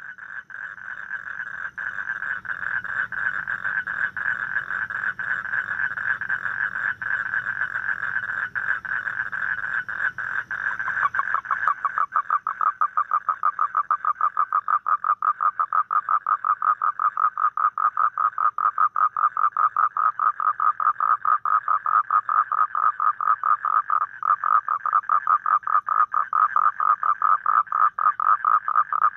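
American toad trilling: one long, unbroken, high trill, the male's advertisement call. About eleven seconds in, the trill drops slightly in pitch and its pulses become more distinct.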